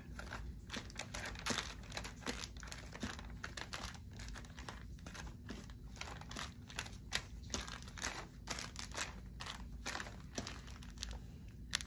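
Soft, irregular crinkling and rustling of packaging as a bundle of elastic lace bands is handled and counted through.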